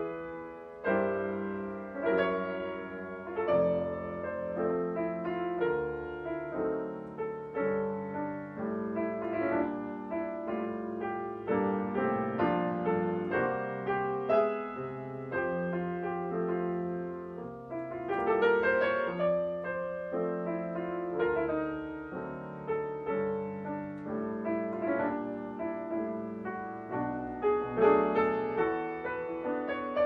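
Background piano music: a gentle melody of single notes and chords, each struck and left to fade.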